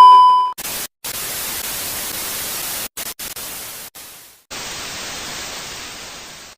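A steady beep at about 1 kHz ends about half a second in, followed by static hiss like an untuned television, cutting out briefly around one, three and four seconds in and changing slightly in tone for the last two seconds.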